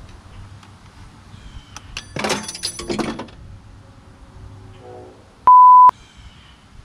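A Torx wrench falls and clatters down through the engine bay, a rattle of metal knocks and clinks lasting about a second. A couple of seconds later a loud, single-tone censor bleep sounds for about half a second.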